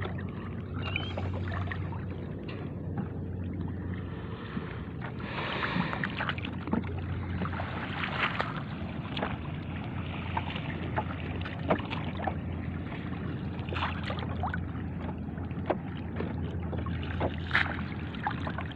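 Water sloshing and splashing as people wade through shallow sea and work a framed hand net through the water, with many short sharp splashes. A steady low hum runs underneath.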